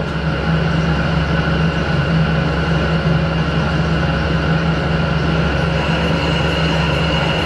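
Harrison 12-inch swing lathe running steadily, its drive humming with a whine on top, while a boring bar takes a continuous cut inside a steam locomotive cylinder casting. The higher whine gets stronger about six seconds in.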